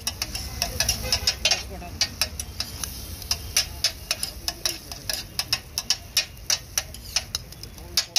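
Metal spatula and scraper blades clacking on a flat metal griddle (tawa) as street food is chopped and mixed on it. The clacks come quick and uneven, several a second, over a low steady rumble.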